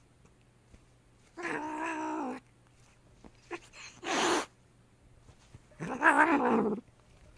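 Cat-like meowing calls: a wavering call about a second long near the start and another near the end, with a short, sharp, noisier call between them.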